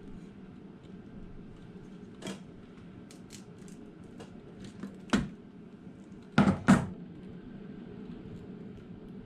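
Hand tools clicking and clacking while a wire terminal is crimped: a few light ticks, then one loud clack about five seconds in and two more close together just over a second later, over a steady low hum.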